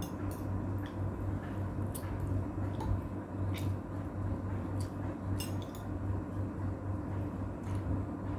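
Close eating sounds: wet chewing and the squish of saucy food taken up by hand, with scattered light clicks against a plate, over a steady low hum.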